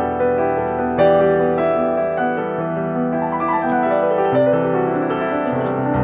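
Background piano music, slow sustained notes and chords.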